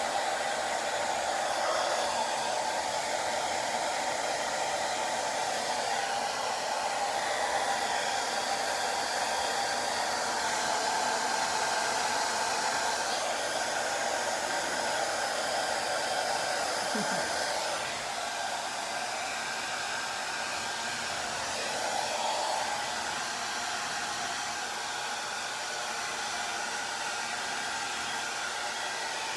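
Hand-held hair dryer blowing steadily, turning slightly quieter about two-thirds of the way through.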